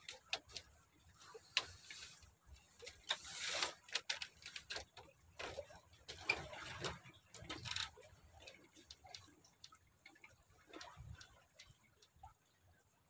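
Irregular small clicks and taps, with longer rustling scrapes about three to four seconds in and again about six to eight seconds in, like close-up handling of objects.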